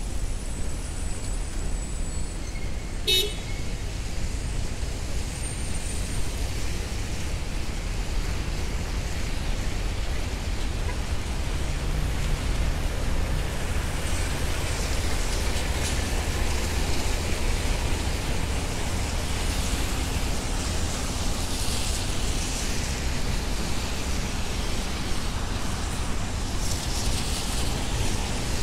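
City street traffic on rain-wet pavement: a steady low rumble of engines with passing cars swelling up in tyre hiss several times. A short, sharp high sound cuts in about three seconds in.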